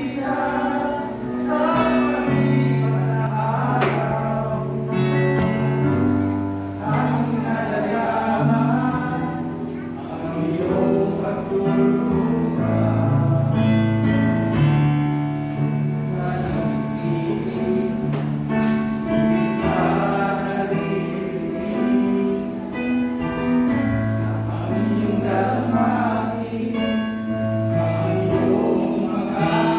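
Men's group singing a gospel song together, with instrumental accompaniment of held bass notes.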